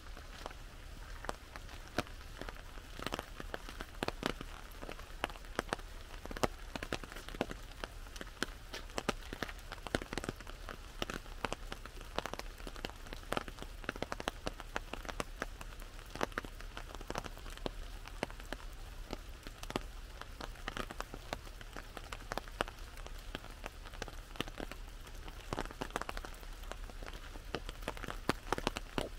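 Rain on an umbrella: a steady patter with many single drops tapping on the canopy at irregular intervals.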